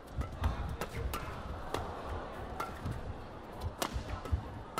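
Badminton rally: sharp cracks of rackets striking the shuttlecock, roughly once a second and the loudest nearly four seconds in, with players' feet thudding on the court mat.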